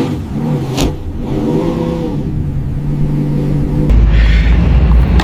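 A car engine running steadily, turning to a louder, deeper rumble about four seconds in.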